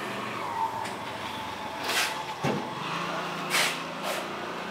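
Steady street background with vehicle noise, broken by a few brief sounds about two, three and a half and four seconds in.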